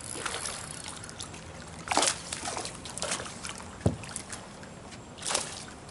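A hooked butterfly peacock bass thrashing and splashing at the surface beside the boat, in three or four separate bursts. There is also a single sharp knock midway through.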